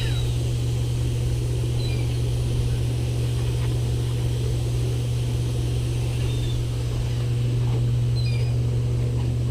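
A motor running with a steady low drone, with a few faint, short, high bird calls over it.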